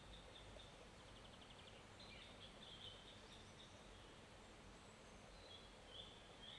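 Faint songbird calls over a quiet, even hiss of flowing forest-stream water: a quick trill about a second in, then short high chirps around two to three seconds in and again near the end.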